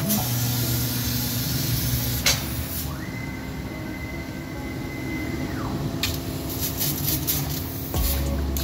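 Fiber laser cutting machine at work on sheet metal, with a steady hissing noise throughout. A high whine rises about three seconds in, holds for a couple of seconds and falls away, like a gantry drive moving the cutting head. Sharp clicks and a run of crackles come near the end.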